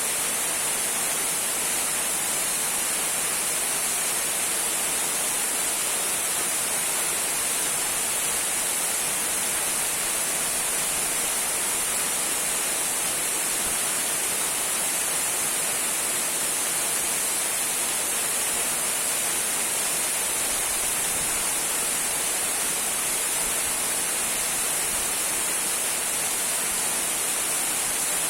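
Small trickling waterfall: water falling in a steady, unbroken rush with a bright hiss.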